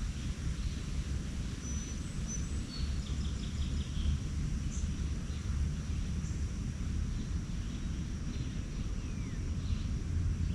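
Songbirds chirping faintly over a steady low rumble, with a quick trill of about five notes about three seconds in and a short falling call near the end.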